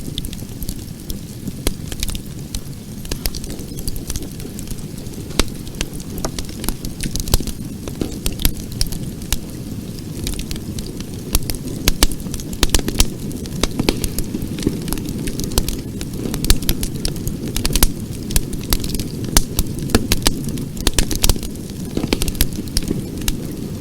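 Campfire burning: a steady low rumble of the flames under many sharp, irregular crackles and pops from the burning wood, which come thicker about halfway through.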